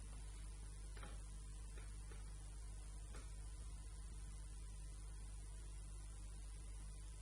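Faint steady electrical mains hum with low background hiss and a few faint ticks.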